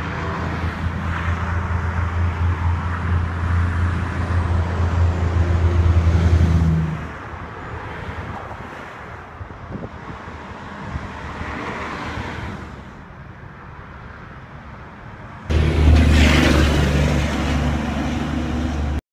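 Road traffic on a bridge: a loud, deep engine rumble for about the first seven seconds, then quieter passing cars, and the rumble comes back suddenly near the end.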